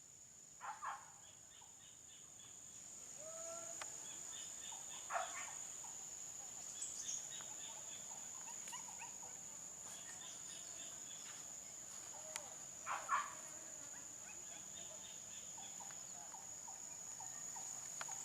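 Steady, high-pitched insect drone, typical of cicadas or crickets, with short chirping trills every few seconds and a few brief, louder calls now and then.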